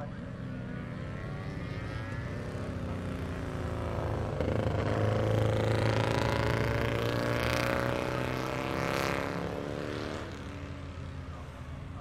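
Several classic racing motorcycles' engines at speed, the sound building from about four seconds in and falling away near the end as the pack approaches and passes. The engine notes slide up and down in pitch through the middle of it.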